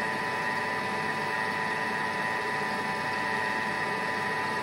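Thermomix TM6 motor running steadily at speed 4, a constant whine over a hum, as its blade mixes coconut oil into a thick biscuit spread.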